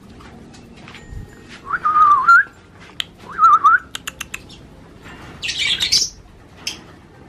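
A person whistles twice, short wavering notes, to call a tame lovebird to an outstretched hand. A quick run of sharp clicks follows, then a brief rasping burst as the bird flies onto the hand.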